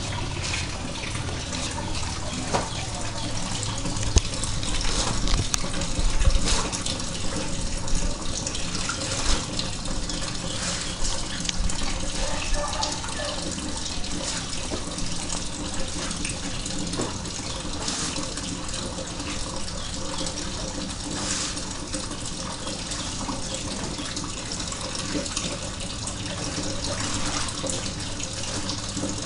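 A steady rushing noise, water-like, with a low hum under it and a few scattered clicks and knocks.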